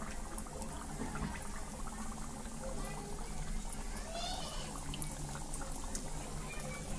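Rounds of maida dough (badshahi) deep-frying in hot oil in a metal pot: a steady sizzle full of small crackles and pops.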